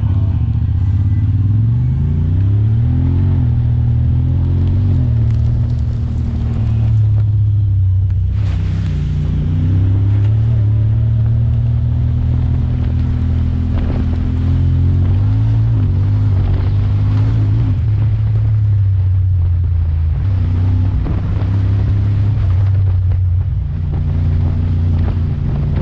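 Honda Talon 1000R side-by-side's parallel-twin engine running, its revs climbing and dropping several times, with a short burst of hissing noise about eight seconds in.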